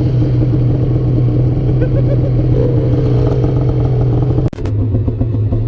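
Two-stroke snowmobile engine running at a steady speed, its tone holding constant, with a brief sharp drop about four and a half seconds in before it carries on.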